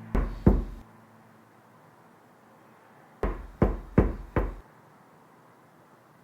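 Knocking: two quick knocks, a pause of nearly three seconds, then four knocks in a row.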